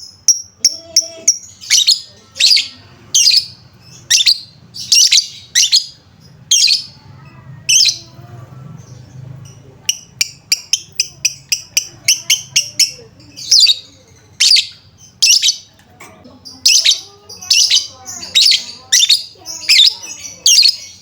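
Lovebird singing: a long run of loud, shrill, sharp chirps, with a quick rattling run of short chirps about halfway through.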